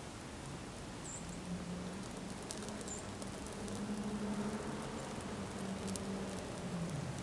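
A burning sneaker in an open fire, crackling with scattered faint ticks and pops over a steady low hum that swells in the middle and fades near the end.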